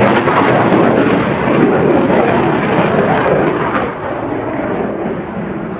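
Jet noise from a Saab Gripen C fighter's single Volvo RM12 turbofan engine in flight. The sound is loud and dense, and grows duller as its top end fades, dropping in level about four seconds in.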